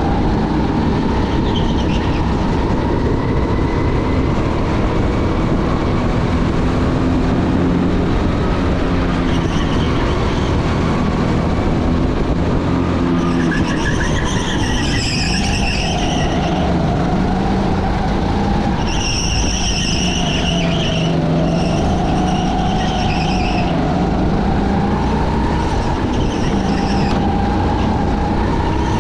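Engine running steadily with a wavering pitch. Several high squeals a second or two long come and go through the second half.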